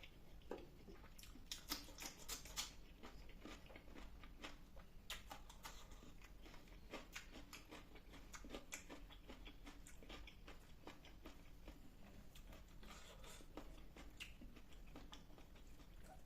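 Faint close-up eating sounds: a person chewing and biting a meal of fish curry, rice and salad, with many small wet mouth clicks and a few louder crunchy bites about two seconds in.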